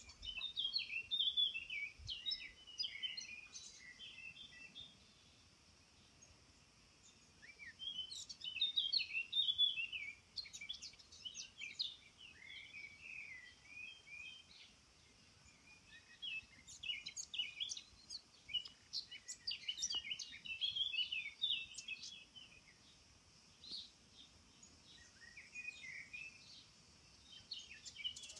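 Songbirds singing in bursts of quick twittering chirps, four spells of song a few seconds apart, over a faint steady high hiss.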